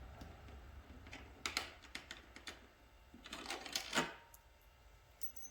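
Light clicks and taps of a screwdriver and hands working on a motorcycle headlight's top mounting screw: a few scattered clicks, then a quick cluster of them near the middle.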